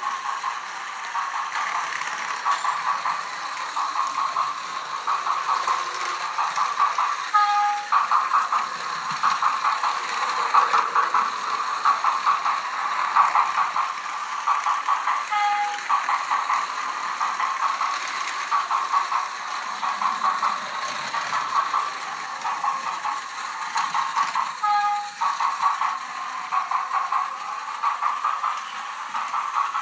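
Battery-powered Enoden 1000 toy sound train running on plastic track: a steady rattling clatter of its small motor, gears and wheels. Three times, about eight seconds apart, the clatter breaks for a brief pair of steady tones.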